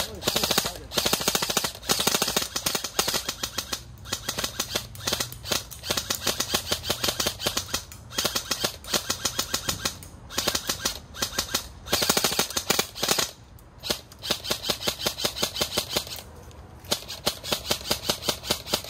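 Airsoft rifles firing downrange in rapid bursts and strings of sharp shots, many a second, with short pauses between strings.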